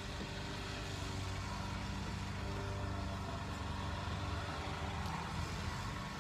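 Steady low mechanical hum of a motor or engine running without change.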